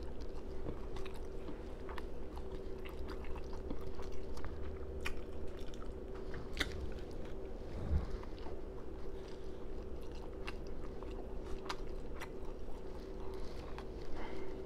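A person chewing fried fish and rice with loud lip smacking, full of short, wet mouth clicks, close to a clip-on microphone.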